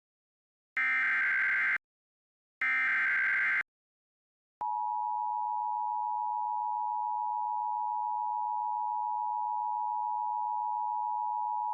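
Emergency Alert System broadcast tones: the last two of the three SAME data header bursts, each a harsh buzzing screech about a second long, then after a second's gap the EAS two-tone attention signal begins, a steady dual-pitched tone held for about eight seconds, announcing a severe thunderstorm warning.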